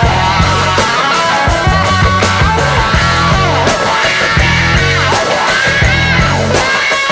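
Background rock music with a steady beat, bass and a lead guitar.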